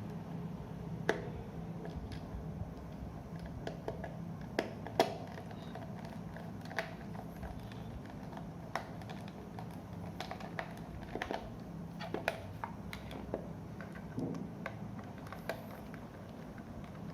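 Small irregular clicks and taps of a screwdriver and screw against a plastic digital multimeter case as a case screw is driven in, over a low steady hum.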